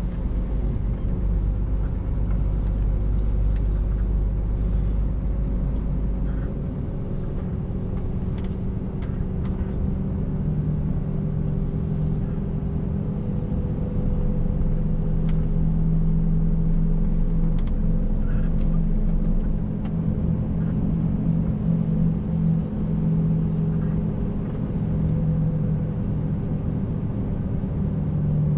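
Scania S460 truck's 13-litre inline-six diesel running under way, heard inside the cab as a steady drone over road rumble. A deep low rumble drops away about six seconds in, and the engine note grows stronger from about ten seconds on.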